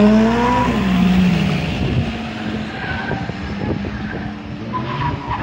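Competition car's engine revving high and then easing off as it is driven hard round a tight cone course, with short tyre squeals about three and five seconds in.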